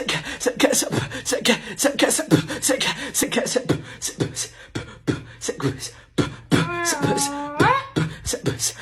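A person beatboxing: quick sharp mouth clicks and snare-like hits over low kick thumps, about four a second, breaking near the end into a short voiced tone that bends down and back up in pitch.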